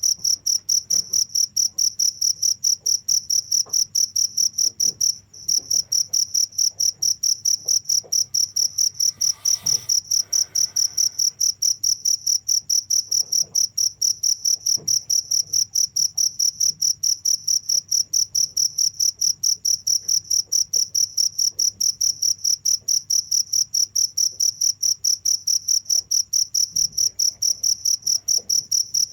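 Cricket chirping in a rapid, steady train of high-pitched pulses on one pitch, with a brief break about five seconds in.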